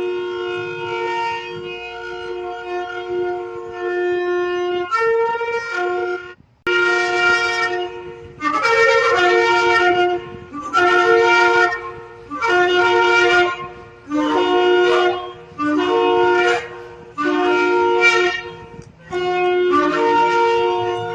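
Shofar (ram's-horn trumpet) blowing. Held notes come first, and after a brief break a run of about seven separate blasts follows, each shifting in pitch.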